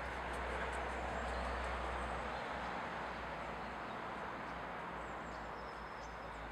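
Steady outdoor background noise with a low rumble and faint bird chirps.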